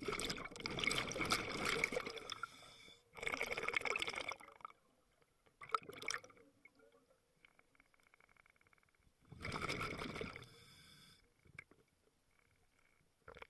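Scuba diver's exhaled bubbles rushing out of the regulator in bursts a few seconds apart, one per breath out, with quiet gaps between as the diver breathes in.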